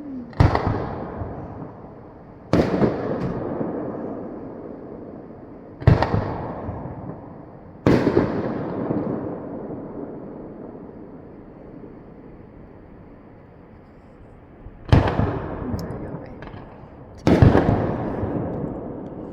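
Aerial firework shells bursting: six loud bangs, each followed by a long rumbling echo that dies away over a couple of seconds, with a longer pause between the fourth and the fifth.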